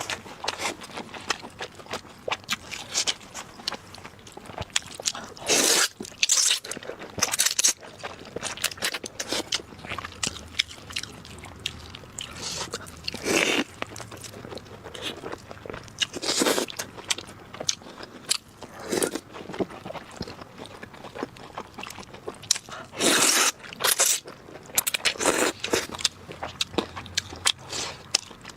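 Close-miked eating sounds: a person biting and chewing spicy noodles and pig's trotters, with many short sharp clicks and louder noisy bursts every few seconds.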